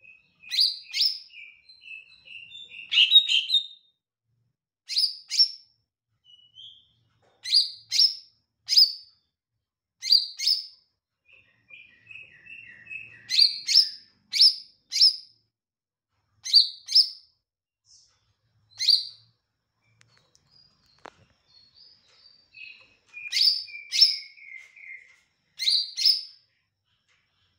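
Caged male green leafbird (cucak ijo mini) singing. Sharp, high chirps come repeatedly, often in quick pairs or threes. Between them are runs of softer, lower warbling twitter, with short pauses.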